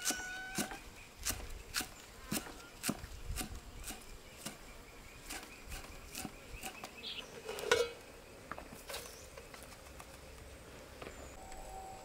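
Steel cleaver chopping green onions on a wooden chopping block: sharp knocks about twice a second, thinning out in the last few seconds, over a faint steady insect drone. A brief, louder sound stands out near the two-thirds mark.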